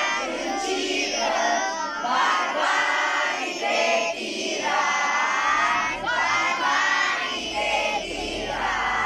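A large group of children singing together in unison, with short breaks between phrases.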